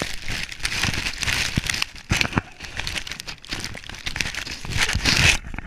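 Dry twigs and dead leaves crackling and scraping against a harness-mounted GoPro as a beagle pushes through brush, loudest near the end.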